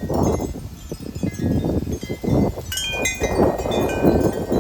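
Several wind chimes ringing in a strong gust, their tones struck irregularly and clustering about three seconds in, over the heavy rumble of wind buffeting the microphone.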